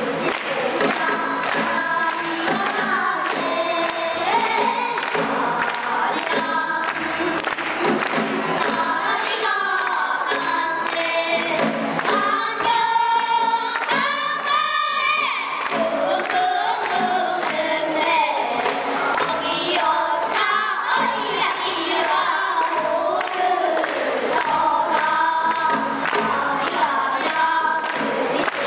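A group of children singing a pansori-style Korean song together over a steady beat. One voice holds a long, wavering high note about halfway through.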